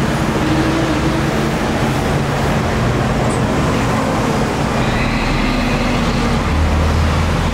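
Lathe running steadily: an even rushing noise over a low, constant hum.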